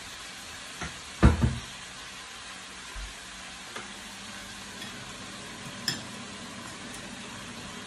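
Sliced bitter melon sizzling steadily in hot oil in a nonstick pan. A few light knocks come through, with a louder thump about a second in.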